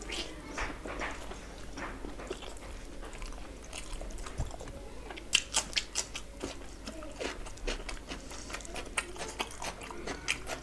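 Close-up chewing and biting of curried meat and rice eaten by hand, with many short mouth clicks. A quick run of louder clicks comes about five to six seconds in.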